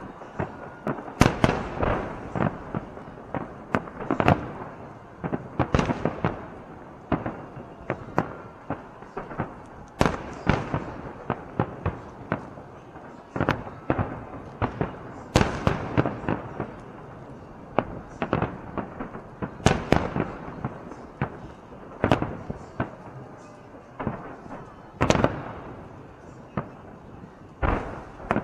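Fireworks salute shells bursting in the sky: a long string of loud bangs, mostly one to two seconds apart, with smaller crackles and pops between them.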